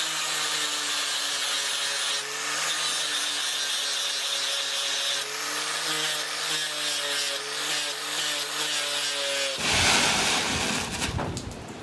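Belt sander grinding a steel rail spike knife blade: a steady motor hum under a dense abrasive hiss as the bevels are ground. About ten seconds in the hum gives way to a louder, rougher rushing noise that then drops away.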